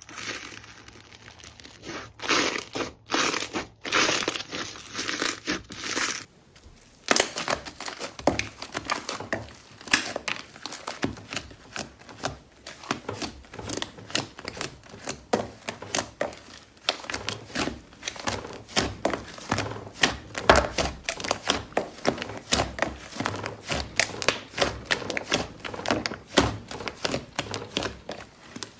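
Slime being pressed and squeezed by hand, giving a dense run of crunchy, crinkling crackles. About six seconds in, the sound changes from a few scattered crackles to a continuous run of pops.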